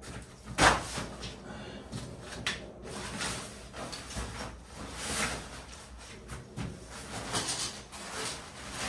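Camping gear being handled on a dusty concrete floor: a sharp knock about half a second in, then several short rustling, scraping swishes as things are moved and laid out.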